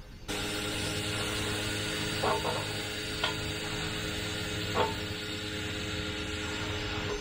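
Pressure washer running steadily: a motor hum under the hiss of the spray, starting abruptly just after the start, with three brief clicks or knocks.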